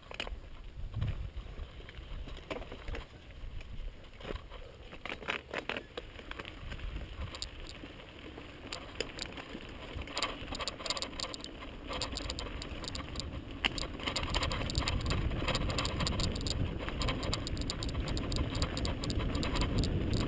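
Mountain bike rolling fast down a dirt singletrack, heard from a helmet camera: tyres on loose dirt with scattered clicks and rattles from the bike over bumps, and a low rumble building over the last few seconds as speed picks up.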